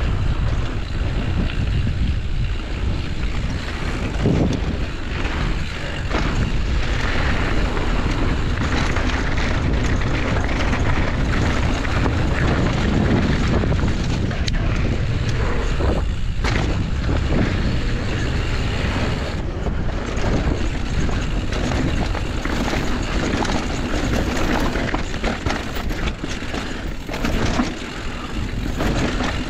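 Wind buffeting a helmet-mounted camera's microphone as a mountain bike descends a dirt and gravel trail, with the tyres rolling over the dirt and occasional knocks as the bike hits bumps.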